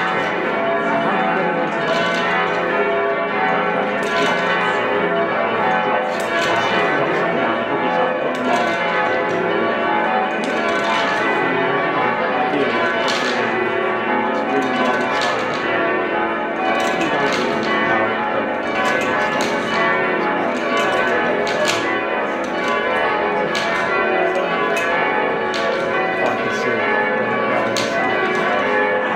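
A ring of church bells being rung down: the bells are swung lower and lower, so strike after strike comes quickly and irregularly. Many bell tones overlap and keep sounding.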